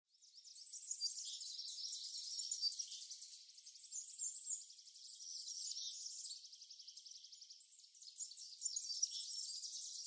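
Chorus of small songbirds, many overlapping high-pitched chirps and rapid trills, fading in about half a second in.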